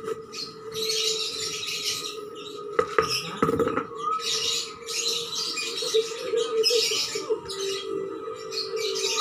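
Dry potting mix of cocopeat, sand and garden soil rustling and scraping in short bouts as it is scooped and worked by hand in a plastic tray, with a couple of sharp clicks about three seconds in. Birds chirp in the background.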